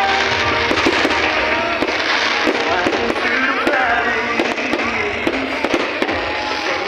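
Fireworks going off in a dense crackling barrage of rapid pops, with short whistles gliding up and down in pitch, over music.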